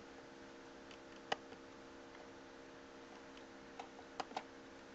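A low, steady hum with several faint tones, broken by a sharp click about a second in and three softer clicks near the end.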